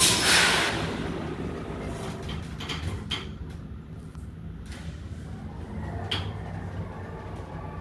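Hydraulic passenger elevator's sliding doors closing, with a loud whoosh at the start and a few light clicks a couple of seconds in, over a steady low hum. Another click comes about six seconds in, as the car starts to rise.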